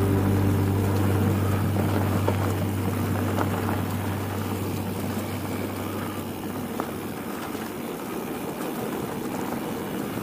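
Mountain bike descending a dirt forest trail: tyres rolling over the dirt and wind rushing past the microphone make a steady noise, with a few small rattles from the bike. A low hum fades away over the first several seconds.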